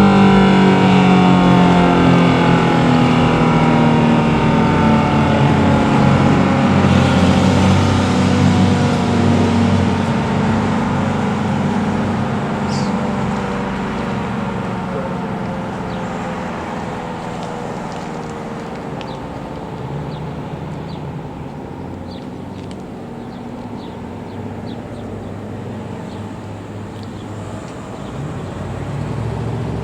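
Federal Signal SD-10 electromechanical warning siren winding down after its alert signal: its pitch glides slowly downward and it fades as the rotor coasts to a stop. Birds chirp faintly over the tail of the wind-down.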